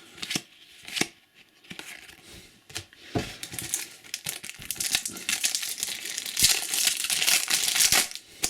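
Trading card packet being torn open and crinkled: a few light clicks, then from about three seconds in a long run of crackling wrapper noise.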